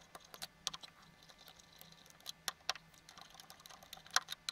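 Screwdriver working the bottom-cover screws out of an Intel NUC mini PC: faint, irregular small clicks and ticks of metal on metal, with a louder pair near the end.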